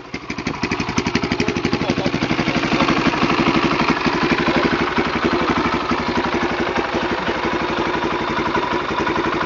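Husqvarna SMR 610 supermoto's single-cylinder four-stroke engine running at idle, its even firing pulses building up over the first second and then holding steady.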